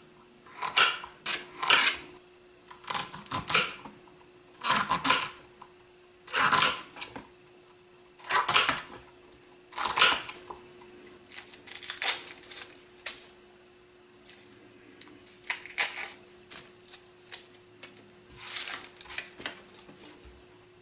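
Kitchen knife chopping carrots and celery on a plastic cutting board: clusters of quick chops with short pauses between them. A faint steady hum lies beneath.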